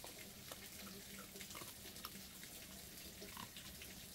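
Faint trickling water with small scattered drips and splashes.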